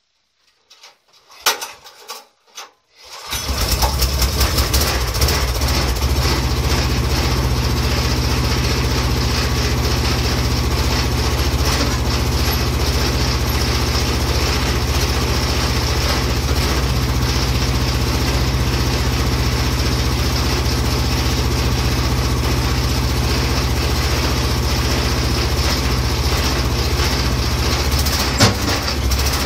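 Engine of a homemade mini excavator starting about three seconds in, after a few clicks and knocks, then running steadily while its hydraulic boom is raised. There is one sharp knock near the end.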